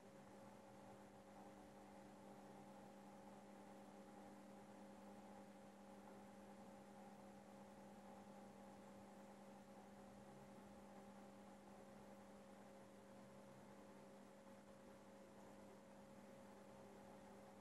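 Near silence: a faint, steady hum over light hiss.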